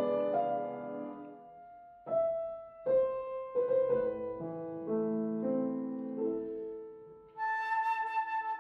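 Classical flute and piano duo: the piano plays a sequence of chords, and near the end the flute enters on a held high note.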